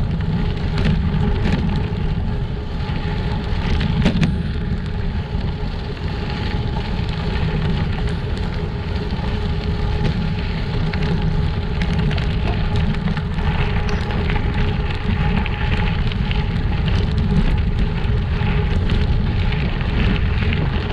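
Gravel bike riding over a rough, rocky two-track: tyres crunching and the bike rattling, with many small clicks and knocks over a constant low rumble.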